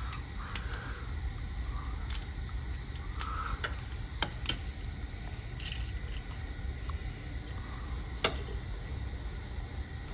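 Scattered sharp metallic clicks and ticks of a wrench and screwdriver working a rocker arm's valve-lash adjusting screw and lock nut, about eight of them, the loudest about halfway through and near the end. A low steady hum runs underneath.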